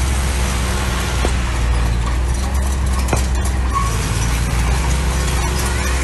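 Mini bulldozer's diesel engine running steadily with a low, even drone, with a couple of faint clicks over it.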